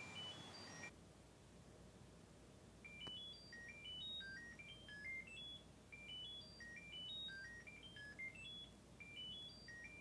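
Nut 3 Bluetooth tracker ringing, a repeating tune of short beeps that climb in pitch in quick runs. It is faint and muffled, buried under clothes in a laundry basket.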